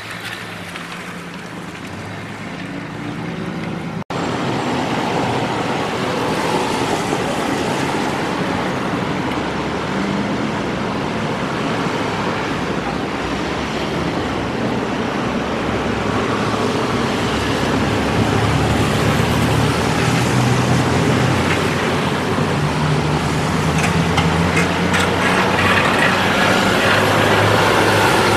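Cars and pickup trucks driving through standing floodwater, with tyres hissing and throwing spray over the hum of their engines. The sound drops out briefly about four seconds in and comes back louder.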